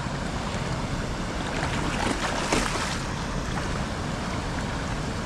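Steady rushing hiss of running water in a shallow vegetated channel, with a few faint clicks about two seconds in.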